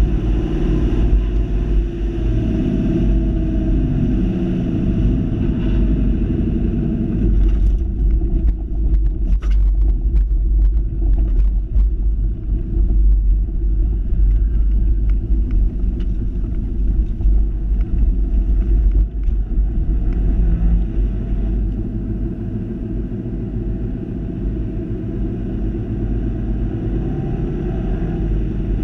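Ford Fiesta ST's turbocharged four-cylinder engine and road noise heard inside the cabin, with a heavy low rumble. From about seven seconds in the sound turns rough, with scattered clicks and knocks as the car runs over the grass runoff. It then settles into a steadier, slightly quieter drone back on the track.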